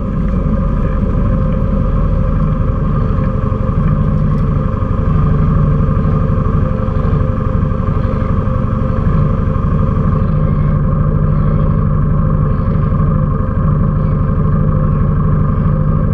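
Quad bike engine idling steadily.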